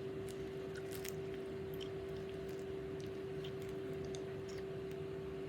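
Makeup being applied by hand: soft dabbing and scattered small clicks of handling, over a steady electrical hum.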